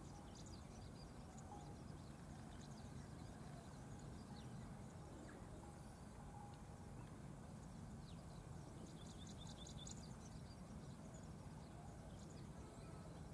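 Faint open-air ambience: a steady low rumble with scattered high bird chirps, including a quick run of chirps about nine seconds in.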